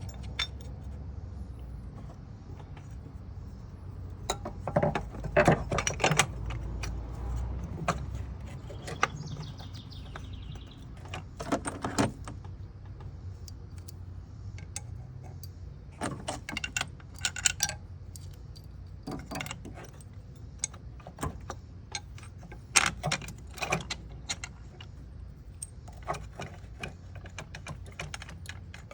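Metal hand tools and engine parts clinking and knocking in scattered clusters during reassembly under the hood, with a short run of fast ticks about nine seconds in.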